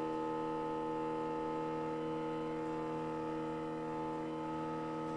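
Open-loop stepper motors driving a CNC mill's Y axis at about 10 inches per minute, giving a steady hum of several held tones. This is the stepper system's audible vibration transmitted through the machine.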